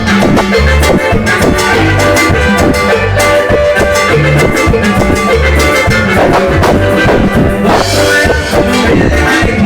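Latin dance music played on an electronic keyboard, with a steady drum-and-percussion beat, a bass line moving in short held notes, and sustained chords over it.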